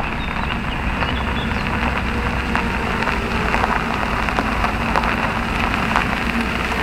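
Suzuki Jimny rolling slowly along a gravel track: a steady crackle of tyres on gravel over a low engine rumble.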